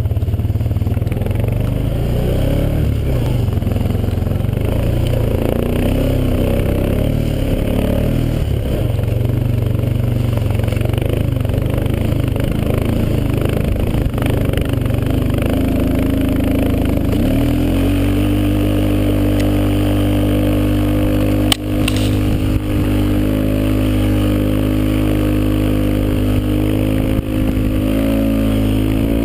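Engine of the tow vehicle pulling a sled on a rope, heard close from a camera mounted on the machine, running steadily at trail speed with a low rumble. From about 18 seconds in its note settles into an even drone, and a sharp knock comes a little past 21 seconds.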